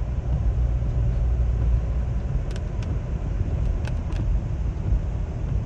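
Car driving on a rain-wet road, heard from inside the cabin: a steady low road rumble with a hiss of wet tyres, and a few light ticks about halfway through.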